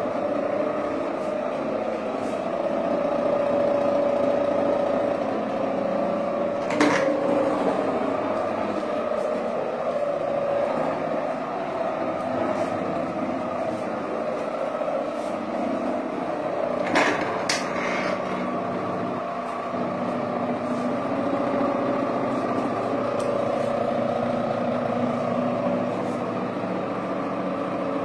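A machine running steadily with a constant droning hum, broken by a sharp click about a quarter of the way through and two more clicks about two-thirds through.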